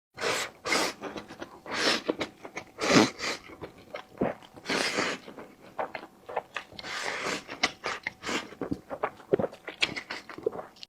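Close-miked eating sounds: a person biting and chewing food in a rapid, irregular series of wet and crunchy bites.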